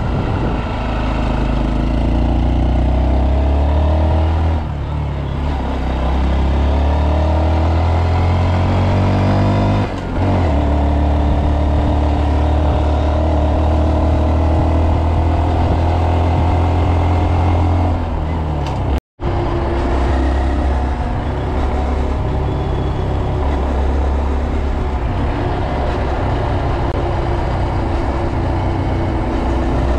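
Honda Monkey 125's single-cylinder four-stroke engine pulling under way, its pitch rising in long glides as it accelerates, with short dips about four and a half and ten seconds in as gears change. The sound drops out for an instant a little past halfway, then the engine runs on at a steadier pitch.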